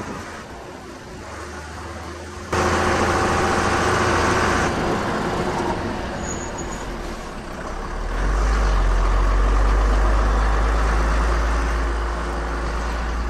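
IVECO 90-16 4x4 truck driving fast over a flat salt lake: engine drone with tyre and wind noise. The sound jumps suddenly louder about two and a half seconds in, and the low engine drone grows stronger from about eight seconds in.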